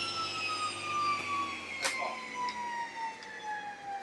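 Table saw's blade and motor winding down after being switched off: a whine falling slowly in pitch. A single wooden knock comes about two seconds in.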